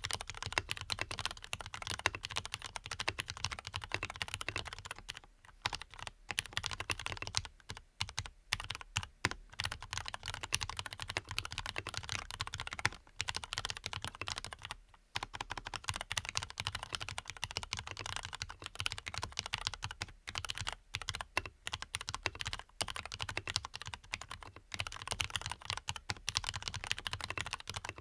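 Continuous fast typing on a Leopold FC660MBT mechanical keyboard with lubed Cherry MX Black linear switches, dampened with foam: a dense run of keystrokes with a couple of brief pauses about halfway through.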